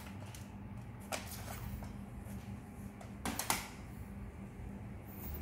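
A few sharp clicks of plastic cassette cases being handled: one about a second in and two close together about three seconds in, over a low steady hum.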